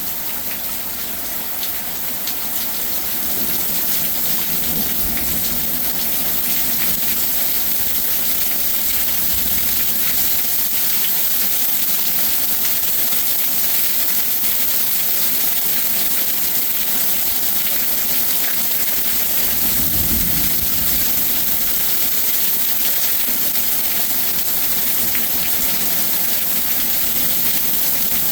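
Heavy rain falling steadily as a dense hiss, growing a little louder a few seconds in, with a couple of brief low rumbles of wind on the microphone.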